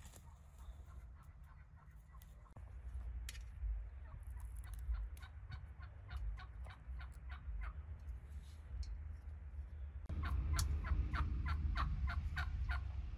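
Domestic turkeys gobbling: runs of rapid rattling notes, with a louder run about ten seconds in, over a low rumble.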